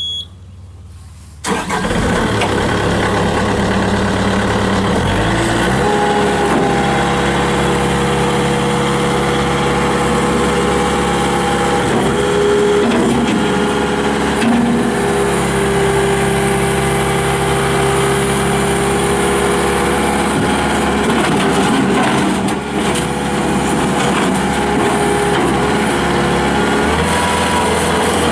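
A short beep, then about a second and a half in the 2007 Bobcat S300 skid steer's Kubota diesel engine cranks, catches and runs steadily. Its engine note steps up a few seconds after the start and shifts again near the end.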